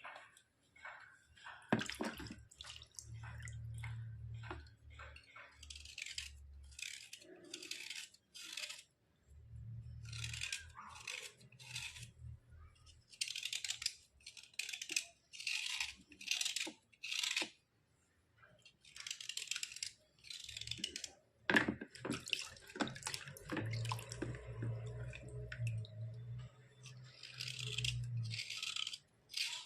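White slate pencil material being scraped in runs of short, gritty strokes, about two to three a second, with pauses between runs. A couple of sharp knocks break in, one a couple of seconds in and another about two-thirds of the way through.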